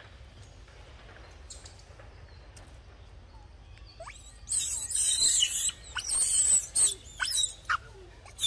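Faint forest background, then from about halfway a run of loud, high-pitched squeals and screeches from a macaque, in several bursts with short gaps and quick glides in pitch.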